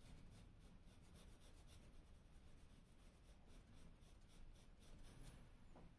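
Faint scratching of a graphite pencil on paper in quick, short hatching strokes, about three to four strokes a second.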